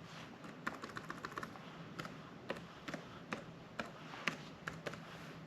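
Keys tapped on a computer keyboard, faint and irregular, typing the diskpart command at a Windows command prompt.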